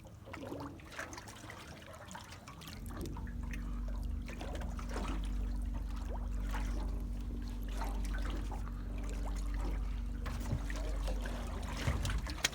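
Water trickling and pouring, joined about three seconds in by a steady low motor hum that stops shortly before the end.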